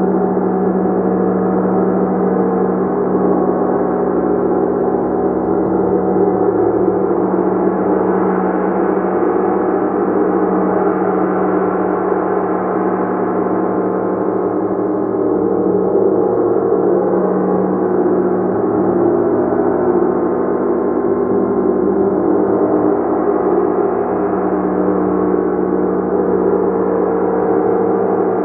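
Gong played continuously: a dense, sustained wash of many overlapping ringing tones, steady in loudness, with no single strike standing out.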